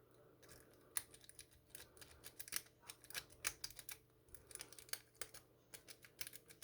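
Quick, irregular light metallic clicks of a lock-pick rake scrubbing back and forth over the pins of a Master Lock 380 padlock, starting about a second in.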